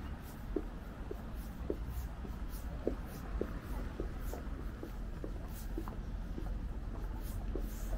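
Footsteps on pavement at a walking pace, about two a second, over a steady low background rumble.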